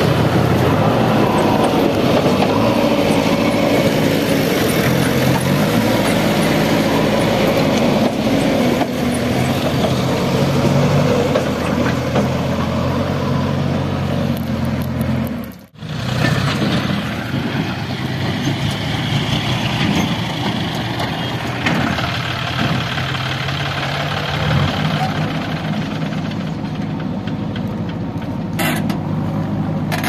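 Heavy diesel engine running steadily, as on a backhoe loader or farm tractor. The sound cuts out for an instant about halfway through, then the engine carries on.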